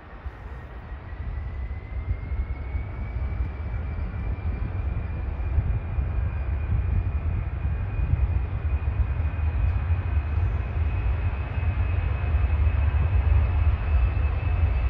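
Boeing C-17 Globemaster's four Pratt & Whitney F117 turbofans at takeoff power on the takeoff roll. A deep rumble grows steadily louder, with a jet whine that rises in pitch over the first three seconds or so and then holds.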